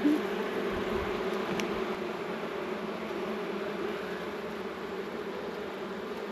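Honey bees buzzing steadily around an open hive, a low continuous hum, with one faint click about one and a half seconds in.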